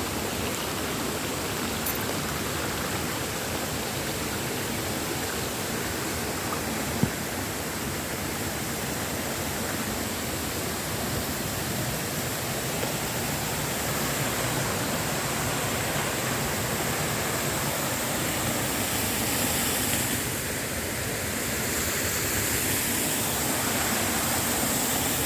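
Water of a waterfall rushing and splashing in a steady, even hiss. A single sharp click about seven seconds in.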